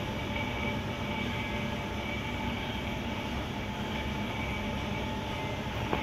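Steady hum and hiss of a bank of aquarium tanks running, with a few faint steady tones in it from the pumps and filtration.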